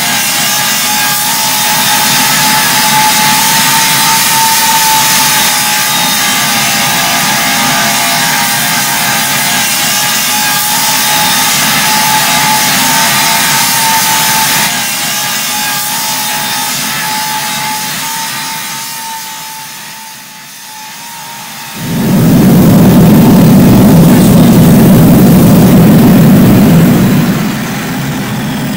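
Angle grinder grinding steel bar stock, a steady whine with the hiss of the disc on metal. About 22 s in, a louder, deeper rushing noise takes over for a few seconds before easing off.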